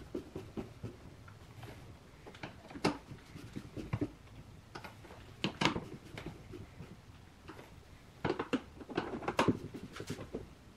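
Hand-held Phillips screwdriver tightening screws through a plastic hood deflector into its metal mounting brackets: irregular light clicks and knocks, with a busier run of them about two-thirds of the way in.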